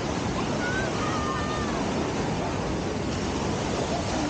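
Ocean surf breaking and washing up over a sandy beach, a steady rushing noise.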